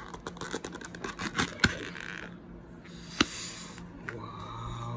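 Plastic deli container lid being pried off by hand: a run of crackling clicks and scrapes, with two sharp snaps, one about a second and a half in and one about three seconds in.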